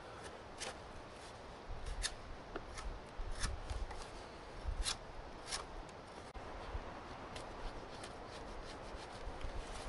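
Knife blade shaving bark and wood from the edge of a wooden throw stick: short, irregular scraping strokes about a second apart, over a low rumble of wind on the microphone.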